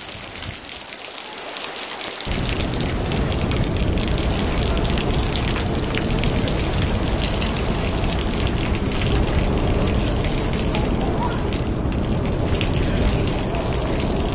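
Heavy rain pouring onto pavement and puddles, a dense hiss of countless drop hits. About two seconds in, a steady low rumble joins it and stays.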